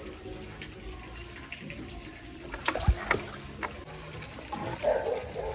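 Water trickling and splashing, with a few sharp splashes about three seconds in.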